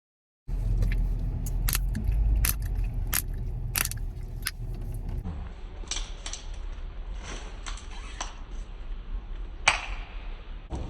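Chewing gum being cracked and popped in the mouth: a string of sharp, irregular snaps over a steady low rumble, with the snaps thinning out about halfway through and one louder pop near the end.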